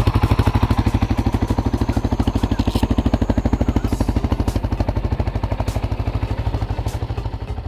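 CFMoto CForce 600 Touring ATV's single-cylinder engine idling: a steady, even chug of about ten pulses a second, with no revving.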